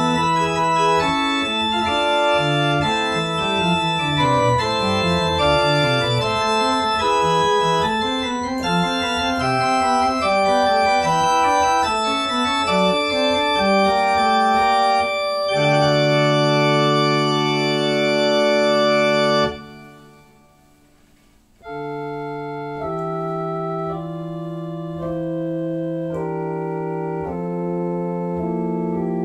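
House organ playing early-Baroque keyboard variations: a fast running passage that settles onto a held chord and stops about 19 seconds in. The sound dies away briefly, then the next variation begins, slower and quieter, with long sustained notes.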